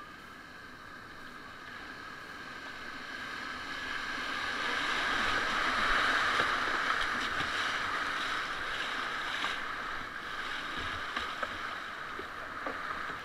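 Rushing white water and spray around an open canoe running a rapid, growing louder as the bow drops through the foaming water about halfway, then easing off as the canoe reaches calmer water.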